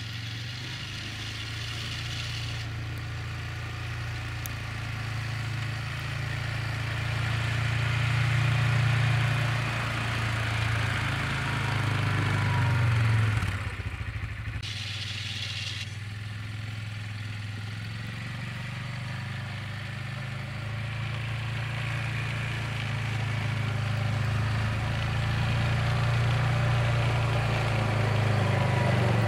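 Yamaha Kodiak 450 ATV's single-cylinder four-stroke engine running under load while plowing snow. The engine swells and eases, dips briefly about halfway through, then grows steadily louder as the ATV comes closer.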